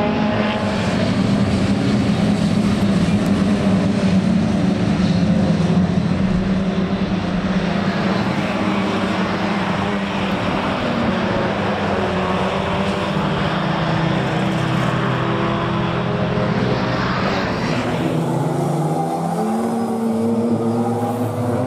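Historic racing cars, Minis and small sports cars, running on track, their engines rising and falling in pitch as they go through the corners and past. The engine note changes abruptly about 18 seconds in to a different car's engine.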